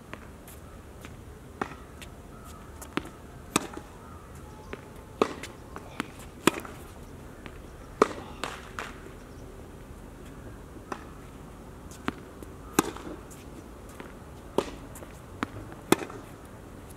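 Tennis rally on a hard court: sharp pops of the ball struck by rackets and bouncing on the court, every second or two at uneven spacing, the loudest ones close by.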